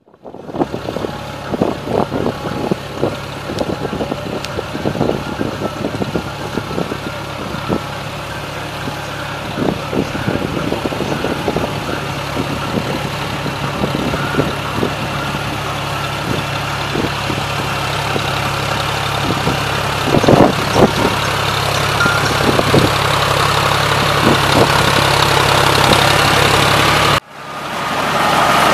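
John Deere 5045D tractor's three-cylinder diesel running steadily under load while its PTO-driven rotavator churns wet paddy mud, with irregular knocks and clatter throughout. A brief break about 27 seconds in, after which it is louder.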